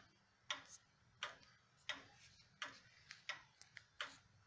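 Faint, steady ticking of the pendulum movement of a 1920s Sessions nautical banjo wall clock, a tick about every two-thirds of a second.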